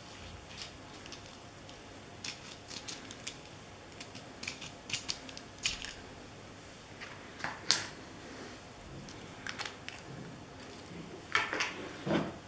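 Small metallic clicks, clinks and scrapes from a metal-bodied handheld green laser pointer being handled and twisted in the hands. A longer clatter comes near the end as it is laid down in its box.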